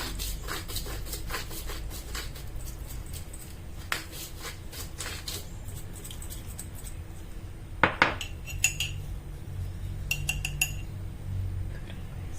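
Kitchen utensil clicking and knocking against a bowl in quick, uneven strokes, as when mixing guacamole ingredients. There is one loud knock about eight seconds in, followed by a few short ringing clinks.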